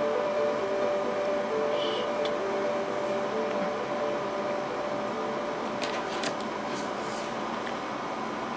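A steady hissing background noise with a faint hum, slowly getting quieter, with a few faint clicks near the end.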